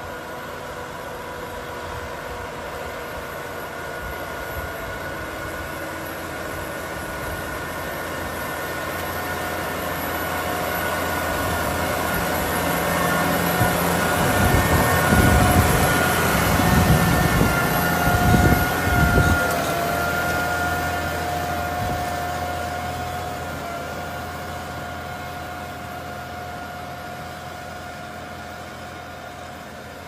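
New Holland T7.270's FPT 6.7-litre six-cylinder diesel working under load while pulling a three-furrow plough through the soil, with a steady whine on top. It grows louder as the tractor approaches, is loudest about halfway through with heavy low rumbling as it passes close, then fades as it moves away.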